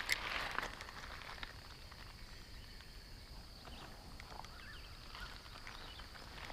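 Quiet outdoor ambience with a faint steady high hiss and a few scattered faint ticks, after a single sharp click right at the start.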